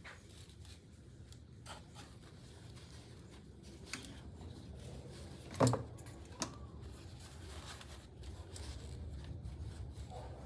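Hand work in a car's engine bay: scattered light clicks, rubs and scrapes of tools and parts being handled, with one sharp knock about five and a half seconds in and a smaller one just after.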